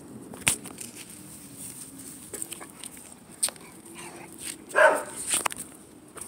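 A dog gives one short, loud bark about five seconds in, amid sharp clicks of a dog chewing on a toy ball.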